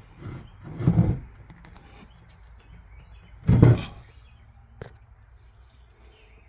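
Two heavy, dull thuds about two and a half seconds apart, followed by a short sharp click.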